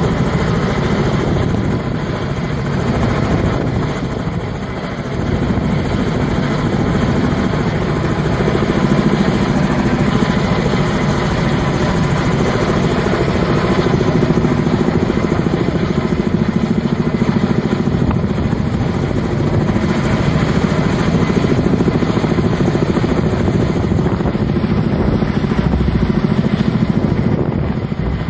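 Kamov Ka-32 coaxial-rotor helicopter hovering under load while it lifts a steel power pylon on a long line. Its rotor beat and turbine noise run steady and fast, dipping slightly in level a few seconds in.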